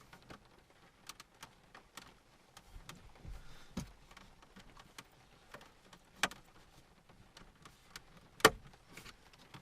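Plastic clicks and knocks of a radio fascia being pushed and clicked into the car's dashboard, a scatter of small ticks with a few louder snaps, the loudest near the end.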